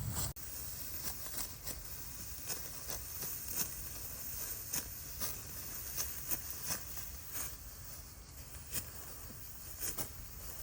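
Dry rice stalks being cut and handled by hand with a sickle: irregular crisp swishing snips and rustles, one or two a second.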